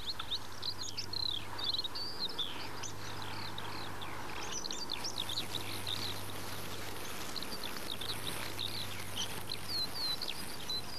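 Small birds chirping in many quick, high calls, growing busier about four seconds in, over a faint steady low hum.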